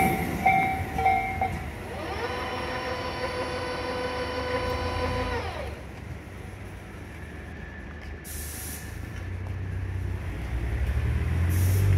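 Tobu 8000-series electric train braking to a stop at a station platform. A whining squeal sounds for about four seconds and drops in pitch as it dies away, then two short hisses of released brake air come over a low, steady rumble. A repeating ringing tone sounds briefly at the very start.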